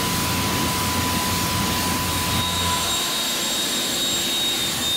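Pressure washer spraying a jet of water onto a truck wheel and tire, with the machine's steady hum underneath. About two and a half seconds in, it gives way to a cordless leaf blower blasting air with a high, steady whine to blow the wheel dry.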